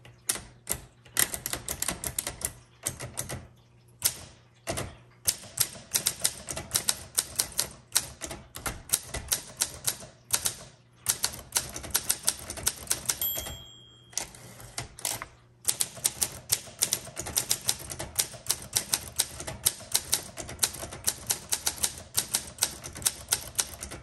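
1957 Olympia SM3 manual typewriter being typed on in quick bursts, keys and typebars clacking, with a few short pauses. Its carriage bell dings once about halfway through.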